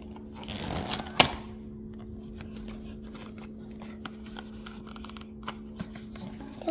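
Packaging being handled during an unboxing: a brief rustling rush about half a second in that ends in a sharp snap, then scattered light clicks and taps.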